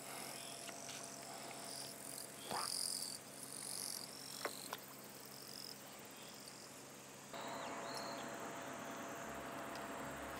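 Insects chirping in high, repeated trills over a quiet background, with a couple of faint clicks in the first half.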